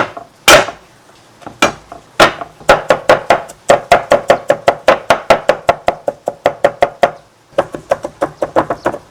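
Garlic being pounded: a few spaced knocks, then a fast, even run of knocks at about five a second, with a short break near the end.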